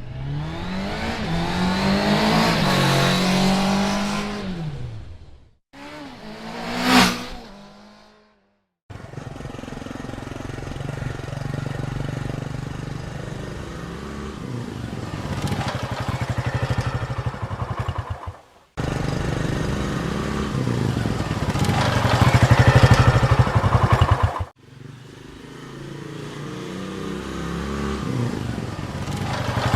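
A string of separate motorcycle engine recordings joined by abrupt cuts. It opens with a motorcycle passing with its pitch rising then falling, then a quick, sharp pass-by about seven seconds in. After that the engine runs with a steady firing beat, swelling louder a few times and ending on a fresh run that builds up in revs.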